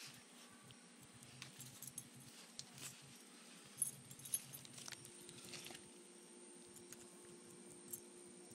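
Faint jingling of a dog's metal collar tags as it noses through mulch, with a couple of sharper clinks about four seconds in.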